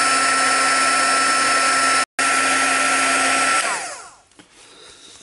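Small crafts heat gun blowing hot air at a stuck chassis screw: a steady rushing blow with a high, steady whine, briefly cut off about two seconds in. About three and a half seconds in it is switched off and the whine falls as the fan slows to a stop.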